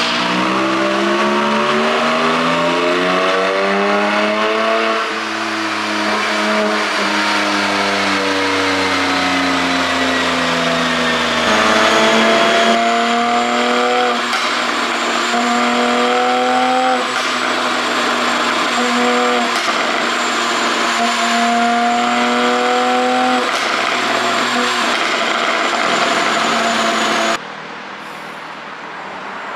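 Porsche 718 Boxster GTS 4.0's naturally aspirated flat-six, on an ECU tune for exhaust pops, running hard: its pitch climbs for about five seconds, then falls away slowly, followed by a series of revs held high with short breaks between them. The engine sound drops away suddenly near the end.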